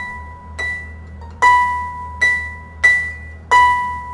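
Harp strings plucked one at a time, alternating between a high C and the C an octave below, about six plucks each ringing briefly. The high C is being tuned up by ear to match the lower octave.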